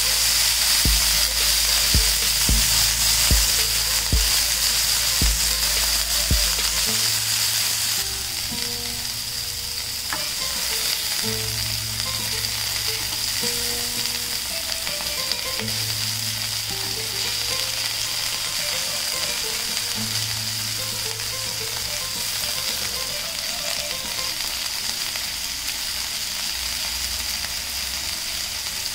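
Chicken seekh kebabs sizzling as they fry in oil on a ridged grill pan, a steady hiss.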